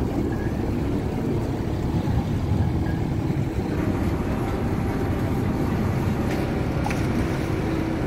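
Moored passenger ferry's engine running steadily alongside the quay, a continuous low rumble with a steady hum.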